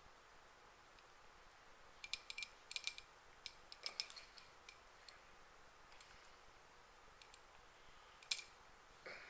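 Small metal parts and hand tools clicking and tapping against each other as they are handled: two clusters of sharp clicks about two and four seconds in, and one louder click near the end.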